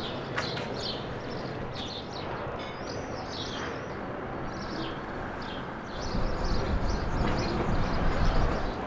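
Small birds chirping again and again in short calls, over a steady background hum; from about six seconds in, a louder low rumble joins them.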